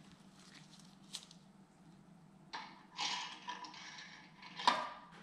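Gloved hands handling a connecting rod cap and bearing at a 2JZ engine block's crankshaft: rubbing and rustling, a small click, then a sharp knock near the end as parts meet. A faint low hum runs underneath.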